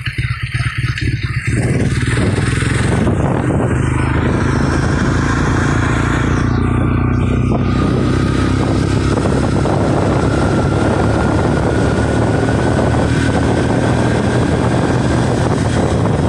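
Motorcycle engine running steadily while riding, with wind rushing over the microphone; it gets louder about a second and a half in.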